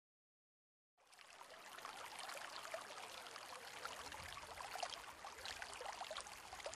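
Faint running, trickling water with small droplet-like plinks, fading in about a second in.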